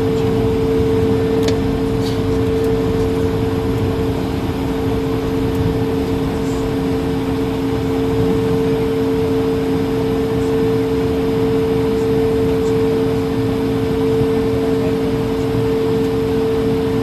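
Airbus A220-300 jet running steadily: two steady tones over an even rush, holding level without rising or falling.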